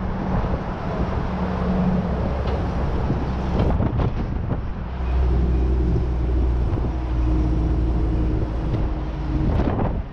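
Heavy tow truck driving at road speed, heard from its roof: a steady low engine drone under road and wind rumble, the engine note strengthening about halfway through, with a few brief knocks.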